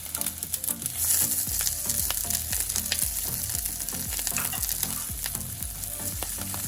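Chopped garlic, onion and scallion sizzling in hot olive oil in a pan, with a utensil stirring them and clicking against the pan.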